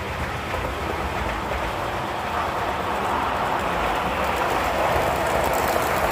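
Model trains running on the layout track: a steady rolling rumble that grows louder from about two seconds in as a second train draws alongside.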